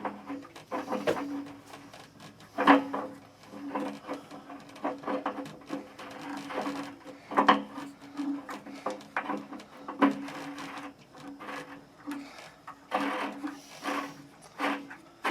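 Irregular metallic clicks, knocks and rattles of hand tools and parts being handled while a new heating element is fitted into an electric water heater, with a sharper knock about three seconds in.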